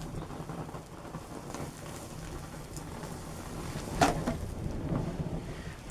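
Leftover solvent being poured out of its bottle at the campfire: a steady rushing, rumbling noise that starts suddenly, with a sharp louder crack about four seconds in.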